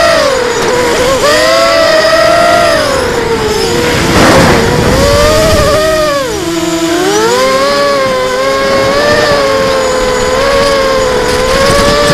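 ImmersionRC Vortex FPV racing quadcopter's electric motors and propellers whining, the pitch rising and falling with the throttle, heard through the onboard camera. A rush of wind noise about four seconds in, and a deep drop in pitch a couple of seconds later.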